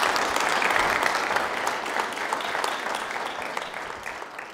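Audience applauding at the end of a lecture. The applause is loudest in the first couple of seconds, then gradually dies down.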